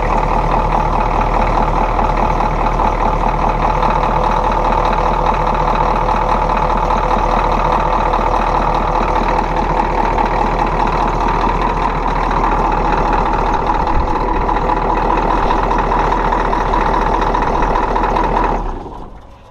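Ford 6.9-litre IDI V8 diesel idling steadily in a bullnose pickup, then shut off near the end, the sound dying away within about half a second.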